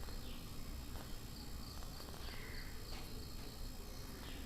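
Faint insect chirping: a steady run of evenly spaced high pips, over quiet background hum.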